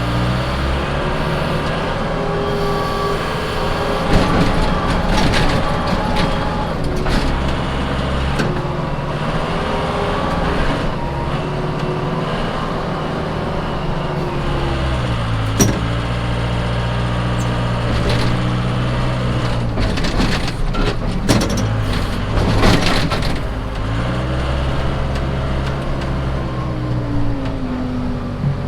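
Case 580 Super K backhoe's diesel engine running hard while pushing snow. Its pitch sags and climbs back several times as the load comes and goes, with a few sharp knocks along the way.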